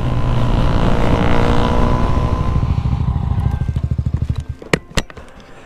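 Yamaha MT-09 three-cylinder engine decelerating as the bike slows to a stop, its pitch sinking and then breaking into slow, separate firing pulses before it fades about four and a half seconds in. Two sharp clicks follow near the end.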